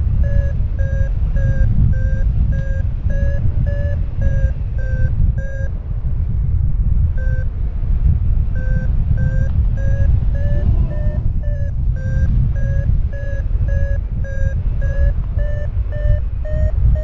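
Paragliding variometer beeping its climb tone, about two to three beeps a second, the pitch drifting up and down as the lift changes, with a short break around six to eight seconds in. Steady wind rush on the microphone underneath.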